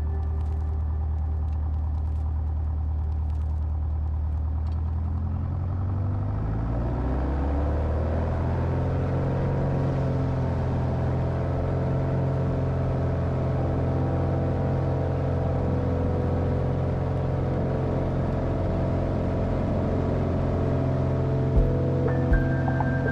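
Single-engine propeller airplane's piston engine heard from inside the cockpit, running steadily, then rising in pitch over about two seconds from about six seconds in to a higher, steady note as power comes up for the takeoff roll. A few sharp thumps near the end.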